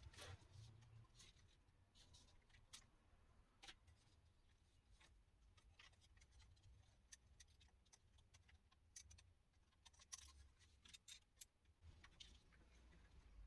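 Faint, irregular clicks and taps from small screws and plastic parts of a Sony Vaio laptop being handled during disassembly, over near silence.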